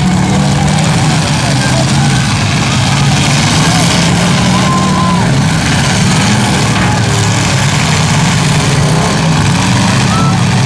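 Several demolition-derby pickup trucks' engines running and revving together, a loud steady rumble, with crowd voices mixed in.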